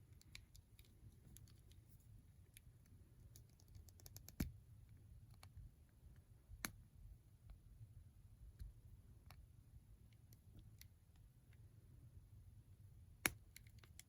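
Faint scattered clicks and taps from a small plastic action figure being handled, with a few louder clicks among them over a low room hum.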